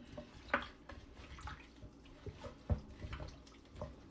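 Raw chicken pieces squelching and sloshing in a bowl of vinegar-and-salt wash as a gloved hand scrubs and turns them: irregular wet squishes, with sharper wet slaps about half a second in and again past the halfway point.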